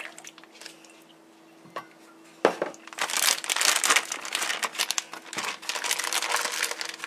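Plastic zip-top bag holding steaks and marinade crinkling and rustling as hands work it, starting about two and a half seconds in after a quiet stretch with a few light clicks.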